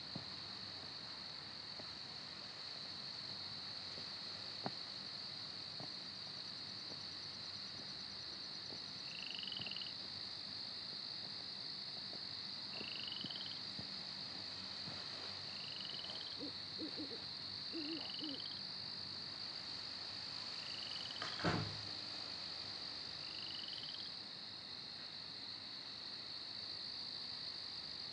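Night ambience: a steady high-pitched insect chorus, with a short rising chirp repeating about every three seconds through the middle of the stretch. A single sharp knock sounds a little past the twenty-second mark.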